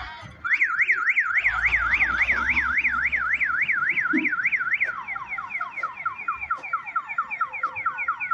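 Electronic alarm siren warbling up and down about three times a second, then switching about five seconds in to quicker, repeated falling sweeps, in the stepped pattern of a multi-tone car-alarm or vehicle siren.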